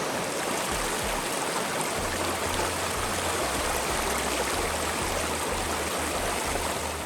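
Fast-flowing river water rushing steadily, the sound of a strong current, with a faint low rumble coming and going underneath.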